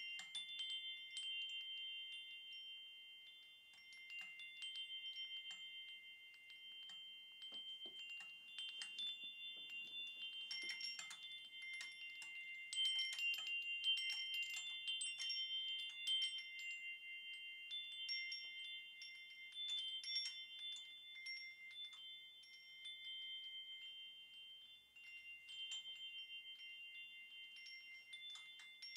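Wind chimes ringing: many light, irregular strikes over a few high tones that ring on without a break, with the strikes loudest around the middle.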